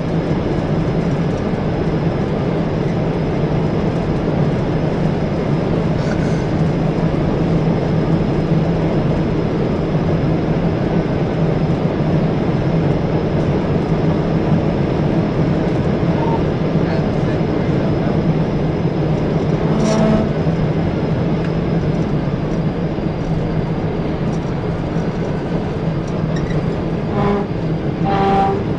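Police patrol car at about 140 mph, heard from inside the cabin: a steady, loud drone of engine, tyres and wind. A few short sharp sounds come about two-thirds of the way through and again near the end.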